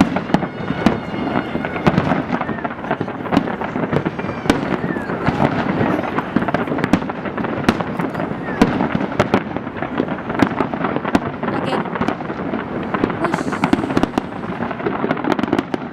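Large fireworks display going off without pause: a dense stream of bangs and crackling, with crowd voices beneath.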